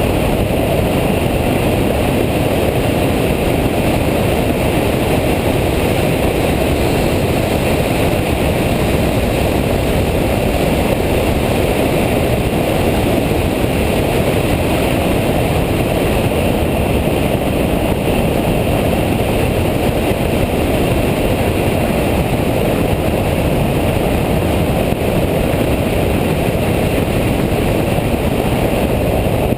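Steady engine, tyre and wind noise from inside a Nissan Nismo track car running at speed through a lap.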